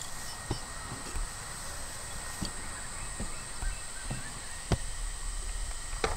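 Outdoor ambience: a steady noise bed with a thin, continuous high-pitched hum and an unsteady low rumble. Light knocks and clicks come every half second to a second, the sharpest about three quarters of the way through and again near the end.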